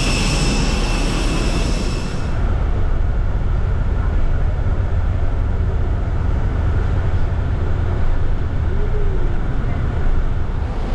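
High-pitched whine from the parked Airbus A321 with a low rumble under it for about two seconds, then the whine cuts off and a low, steady vehicle-engine rumble carries on.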